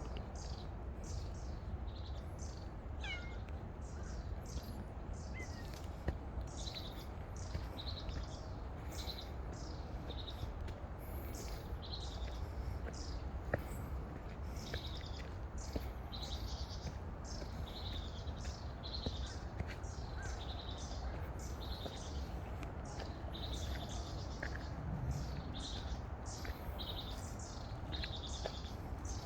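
Birds chirping in a forest: many short, high, falling chirps repeat over a steady low rumble.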